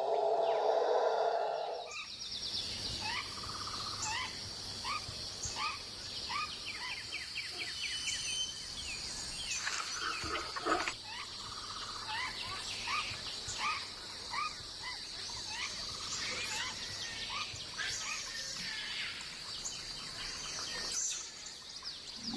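Rainforest ambience: a steady high-pitched insect drone, with a bird repeating short whistled notes, about three every two seconds, in several runs. It opens with about two seconds of rustling in dry leaf litter.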